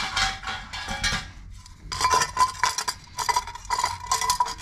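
Galvanised steel socket back box scraping and clattering against brick as it is pushed into a chopped-out recess in the wall. After a short pause it goes on in quick scraping strokes, with the metal box giving a faint ringing tone.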